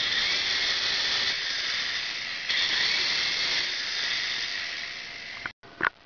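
Small electric motors of an inexpensive three-channel infrared toy helicopter spinning its coaxial rotors: a steady high whine with a rotor hiss. It gets louder a little under halfway through, eases off slightly, then cuts off about five and a half seconds in.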